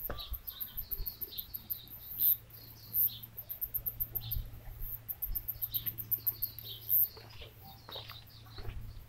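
Small birds chirping: many short, high chirps repeating throughout, with a few brief louder clicks and a faint low steady hum underneath.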